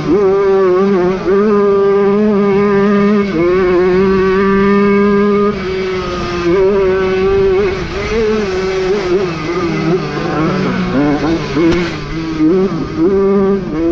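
Jawa 50 two-stroke moped engine running hard at high revs, its pitch dipping and rising again several times as the throttle is eased off and reopened.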